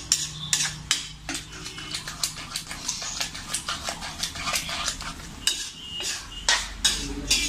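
Flat metal spatula stirring a thick, wet masala in a metal kadai, with an irregular run of scrapes and clinks against the pan.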